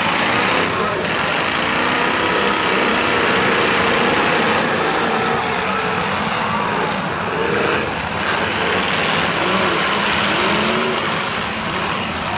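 Demolition derby cars' engines revving and running, the pitch rising and falling, mixed with steady crowd noise.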